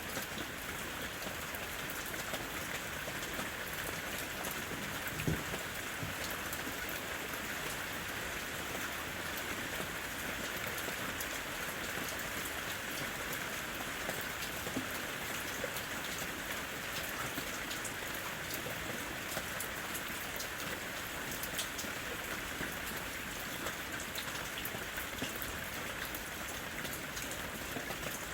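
Steady rain falling in a forest, with many individual drops ticking close by and one heavier drop or knock about five seconds in.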